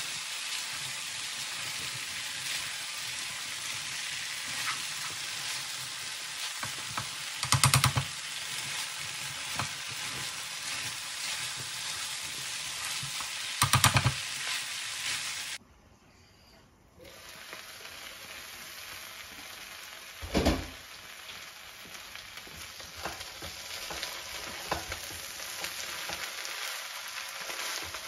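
Brown rice stir-fry sizzling in a nonstick frying pan as it is stirred and turned with a spatula. The spatula scrapes and knocks loudly against the pan three times. The sound cuts out for about a second halfway through and comes back quieter.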